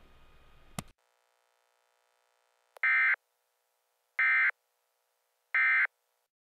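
Emergency Alert System end-of-message signal: three short identical data bursts, each about a third of a second long and spaced about a second and a half apart, which mark the close of the alert. A click comes about a second in, before the bursts.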